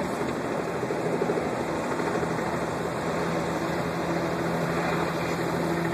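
Life flight helicopter running, a steady fluttering drone of rotors and engine with a steady hum under it.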